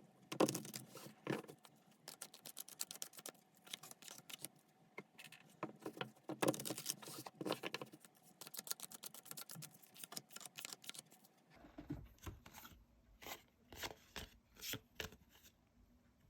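Tarot cards being shuffled and handled: a rapid run of papery clicks and snaps. About two-thirds of the way through it thins to separate, spaced clicks as cards are set down.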